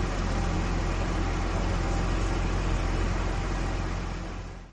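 Engine sound effect for a cartoon forklift driving off: a steady low engine hum with a hiss over it, fading away near the end.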